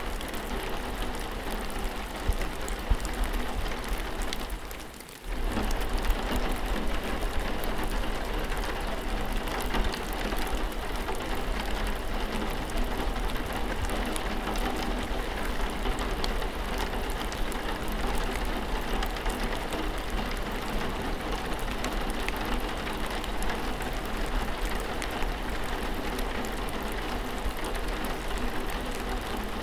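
Steady rain falling, a dense patter of drops, which briefly dips and comes back about five seconds in.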